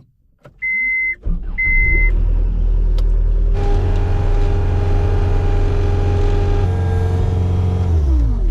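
Two short electronic warning beeps, then a John Deere skid loader's diesel engine starts and runs. A few seconds later it throttles up with a steady whine on top, and near the end the pitch drops.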